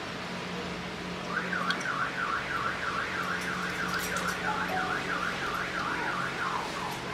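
Electronic warbling alarm tone, its pitch sweeping up and down about three times a second, starting about a second in and running on for over five seconds, in the manner of a car alarm or siren.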